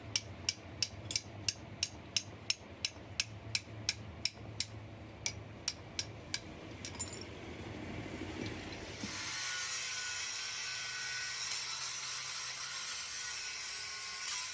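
Regular sharp metal clicks, about three a second, stop about seven seconds in. About nine seconds in, a steady high-pitched grinding noise starts, the sound of metal being ground on the brake plate.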